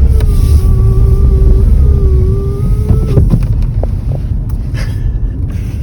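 Car running, heard from inside the cabin: a loud low rumble with a steady hum for about three seconds, then quieter for the rest.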